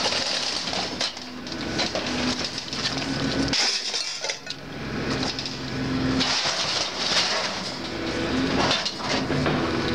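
Scrap metal being unloaded: pieces clanking and clinking against each other as they are tossed onto a pile.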